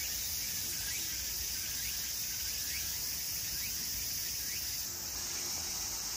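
Steady high-pitched drone of insects, with faint short rising chirps every second or so that die away about four seconds in.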